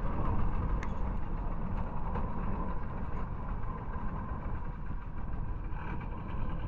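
Boat engine running steadily under a heavy low rumble, starting abruptly.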